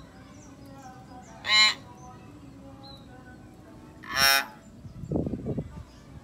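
Common hill myna calling: two loud, short, nasal calls about two and a half seconds apart, then a low, rapid rattling croak lasting under a second near the end.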